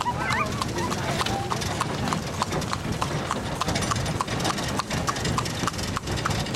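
Horse's hooves clip-clopping in a steady rhythm on a wet paved road, about three to four hoofbeats a second, as it pulls a carriage. Under them is the low, steady rumble of the carriage rolling.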